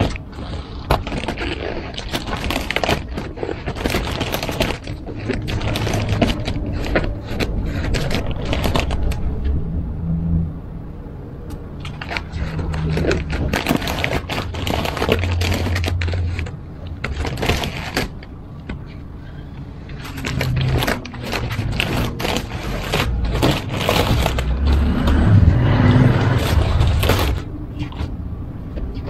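Adhesive vinyl advertising sticker being peeled off a car's painted door panel: crackling, tearing and scraping in spells separated by short pauses, with a low hum coming and going underneath.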